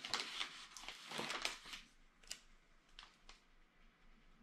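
Faint rustling of a printed paper sheet of labels being handled for about the first two seconds. Then a few light ticks follow as labels are peeled off and pressed onto glass wine bottles.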